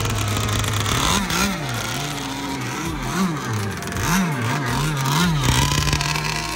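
Small two-stroke engine of a red RC racing boat, held out of the water. It idles at first, then is revved up and down in quick blips again and again, and it settles at a steady higher speed near the end.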